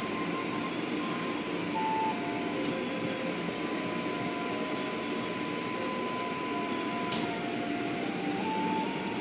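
Automatic car wash tunnel running, heard through the viewing-window glass: a steady rush of spraying water and spinning cloth brushes. Faint thin tones come and go over it, stepping between a few pitches.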